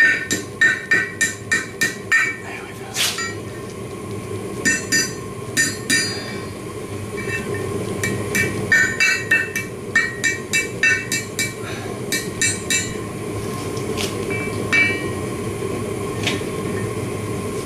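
Hand hammer striking a red-hot steel bar over the horn of an anvil, bending the final curve of a hook, with bright clinking blows about two to three a second in bursts with short pauses, thinning out after about 13 seconds. A steady low hum runs underneath.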